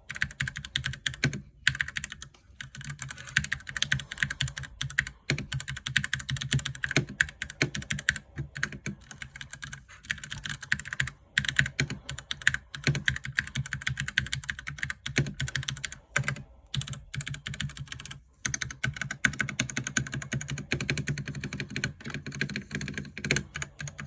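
Rapid typing on a Ducky One 2 Mini mechanical keyboard with Cherry MX Silver linear speed switches: a dense stream of key clicks and clacks, broken by a few brief pauses.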